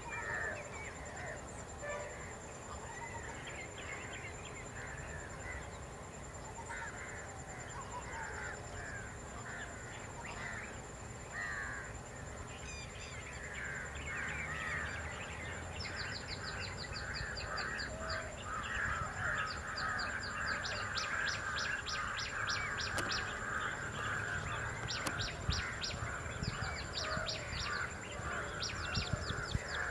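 Several birds chirping and calling, a dense chatter that grows busier about halfway through, joined by quick runs of high, rapidly repeated notes. A thin, steady high-pitched whine sits underneath.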